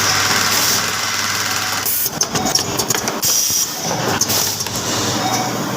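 Automatic soldering machine for USB-to-micro-USB cables running: a steady low hum, with bands of hiss that switch on and off every second or so.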